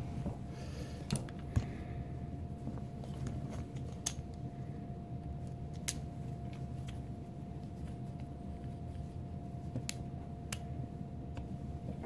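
A few sharp metal clicks and taps, spread out, as a small two-jaw bearing puller is handled and fitted around the bearing on the inducer motor's shaft, over a faint steady hum.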